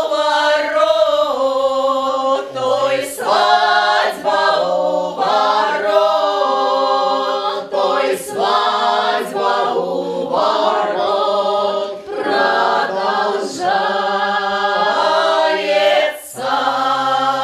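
A small group of men and women singing a Cossack folk song unaccompanied, in several voices together, in phrases with short breaks between them.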